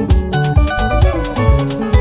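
Instrumental passage of a band song with no singing: a steady drum beat and bass under a run of short, bright melody notes.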